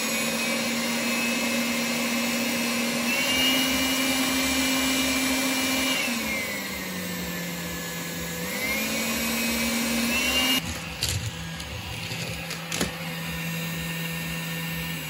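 Makita CL108FD 10.8 V cordless stick vacuum running, its motor hum and whine shifting up and down in pitch several times as the power-mode button is switched between the standard, strong and powerful settings. A couple of sharp clicks come late on.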